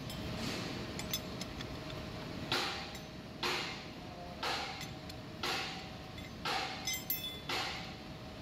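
Metal clinks of a spanner on the three-jaw chuck and cast iron flange as the chuck jaws are worked, over a steady machine hum. A short hissing swish from the workshop comes again about once a second and is louder than the clinks.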